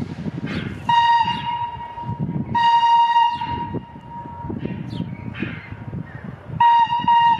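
Steam locomotive whistle (FS Gr 625 steam engine) sounding three blasts of one steady pitch, the middle blast the longest, with the third starting near the end.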